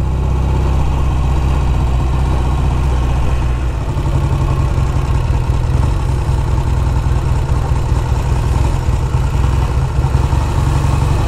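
1956 Triumph T110's 650 cc parallel-twin engine running at low revs, near idle, its note changing about four seconds in.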